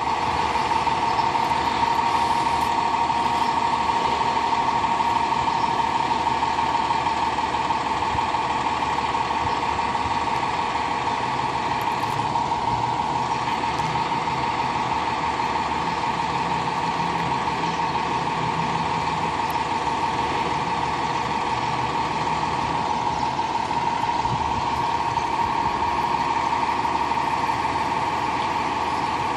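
Fire engine idling in an open station bay, its engine running steadily, with a constant high-pitched tone sounding over it throughout.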